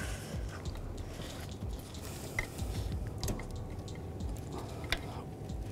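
Quiet handling noises as a plastic wiring-harness push retainer is pressed into place in the engine bay, with a few small clicks, the clearest about two and a half seconds in and near the end.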